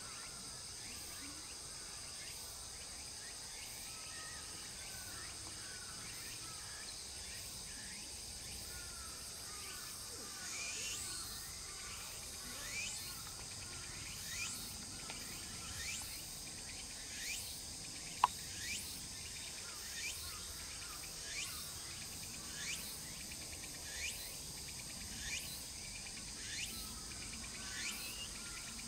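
Outdoor ambience of insects trilling steadily. About ten seconds in, a short falling chirp joins them and repeats roughly every 1.3 seconds. A single brief sharp click a little past halfway is the loudest moment.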